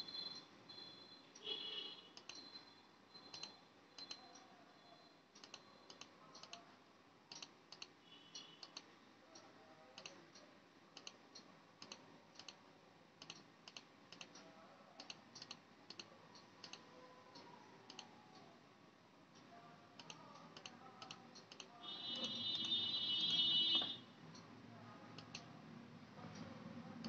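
Computer mouse clicking over and over, about one or two clicks a second, as a password is entered on a DVR's on-screen keyboard. There are a few short high beeps near the start, and a louder high-pitched tone lasting about two seconds near the end.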